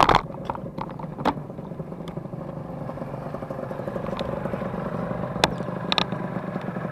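Small motorcycle engines running steadily, with a few sharp clicks and clatters.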